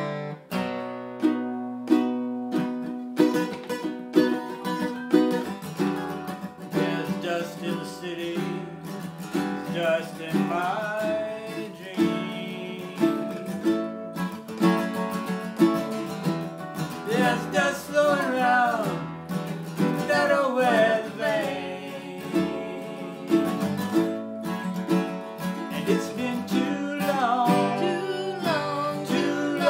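Acoustic guitar and ukulele strummed together as song accompaniment, with singing coming in about ten seconds in.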